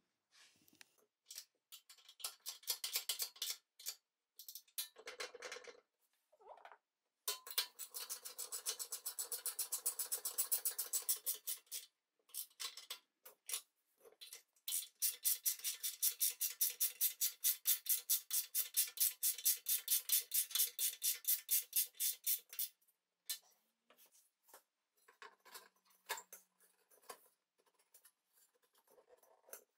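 Metal parts of a Tilley FL6 runway lamp being handled and fitted by hand: scattered light clicks and rubs, with two long runs of rapid, even clicking at about five clicks a second, the first starting about seven seconds in and the second about fifteen seconds in.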